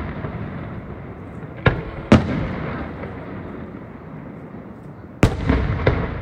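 Aerial firework shells bursting: two sharp booms about a second and a half to two seconds in, then two more about five to six seconds in, each trailing off in a long fading rumble.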